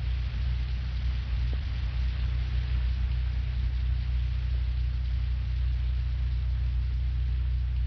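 Steady low rumbling drone with an even hiss over it, an industrial-sounding ambient soundscape that does not change.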